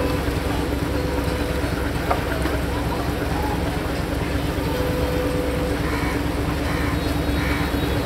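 A steady engine drone with a constant low hum under the general noise of a busy outdoor place; faint voices rise briefly near the end.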